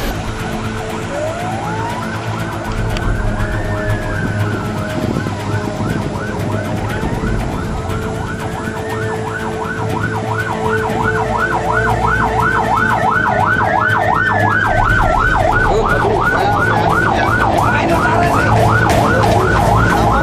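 Sirens of airport fire-rescue vehicles sounding together on an emergency run: a slow rising-and-falling wail at first, joined about halfway by a fast yelp, growing louder toward the end. A vehicle engine runs low underneath.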